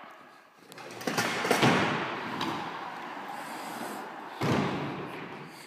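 Kick scooter wheels rolling down a skatepark ramp and across the floor, with thuds as the scooter drops in about a second in and another thump past the four-second mark, the rolling noise fading after each.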